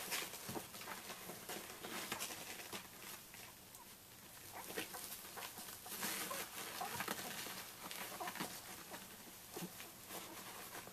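Rustling and scuffing of quilted whelping-box bedding and paper as 12-day-old Samoyed puppies crawl over it, with a few faint, brief puppy squeaks.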